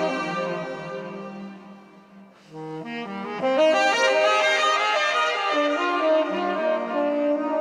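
Saxophone and piano playing a slow instrumental passage. A low sax note fades out about two seconds in, then a new phrase begins and the melody climbs.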